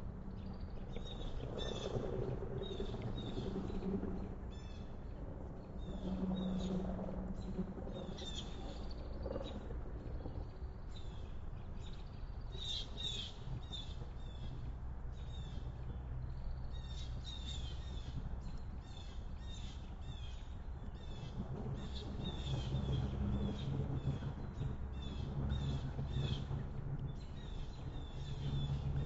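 Wild backyard birds calling outdoors: many short, high chirps repeating throughout, over a steady low rumble.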